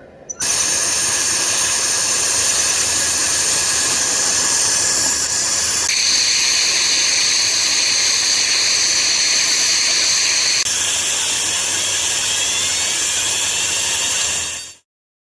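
High-speed dental drill running steadily: a high whine over a hiss, shifting abruptly in pitch about six and eleven seconds in, then stopping just before the end.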